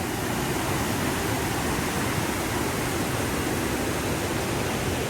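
The Göksu waterfall rushing: a steady, even noise of falling water.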